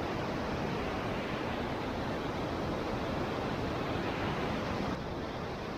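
Steady, even rushing noise, dropping slightly about five seconds in.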